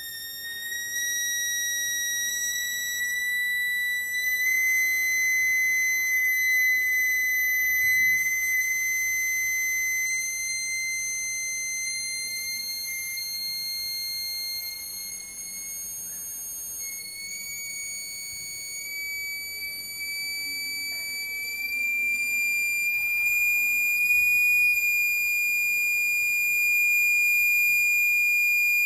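Loudspeaker fed by a signal generator, playing a high steady tone that climbs slowly in small steps, driving standing waves in a Kundt's tube. Its loudness rises and falls, and it is loudest near the end.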